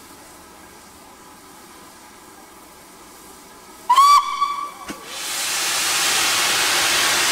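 Steam locomotive whistle blown once, a short high note lasting about a second, about four seconds in. Soon after, a loud steady hiss of escaping steam starts up from the engine.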